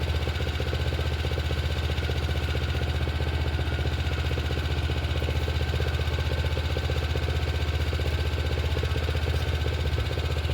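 Kawasaki engine of an Etesia Pro 46 lawn mower idling steadily with an even, regular beat. The owner thinks the idle is probably running a little slow, though it ticks over and starts better after the repair.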